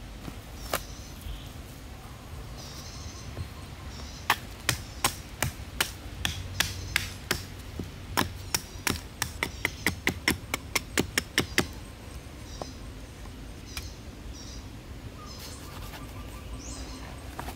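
A blade chopping into a wooden branch: about two dozen sharp strikes starting some four seconds in, quickening from about two to four a second, then stopping.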